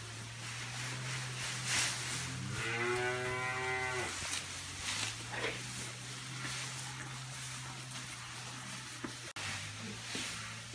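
A cow mooing once, a call of about a second and a half that rises in pitch and then holds.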